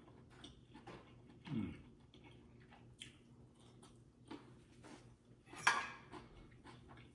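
Eating at a plate: small mouth and chewing noises, a short low hum falling in pitch about a second and a half in, and, near the end, a knife and fork scraping sharply on a ceramic plate as the lamb chop is cut.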